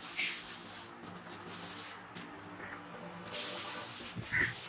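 Rustling of green beans being gathered by hand on a cloth sheet and of a nylon mesh vegetable bag, in two spells, the second starting a little over three seconds in.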